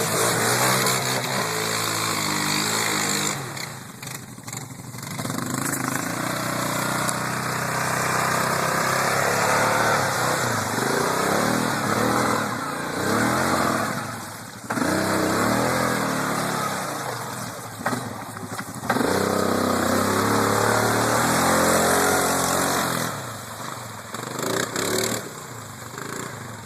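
ATV engine revving up and down over and over, easing off briefly about 4, 14 and 18 seconds in.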